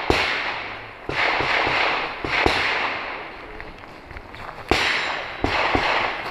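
Pistol shots from other shooters on the range: about six sharp reports at uneven intervals, each trailing off in a long echo.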